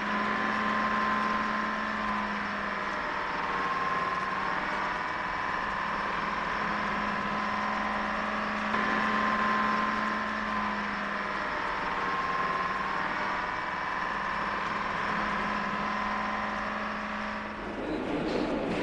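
Engine of an aircraft tow tractor running steadily as it pulls the Space Shuttle orbiter, with a steady high whine over it.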